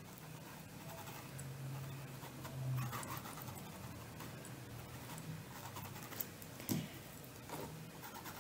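Faint scratching of a paintbrush blending acrylic paint into fabric, over a low steady hum, with a couple of soft clicks late on.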